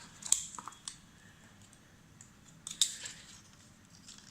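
Light clicks and taps of small plastic items being handled, with two sharper clicks, one just after the start and another about two and a half seconds later.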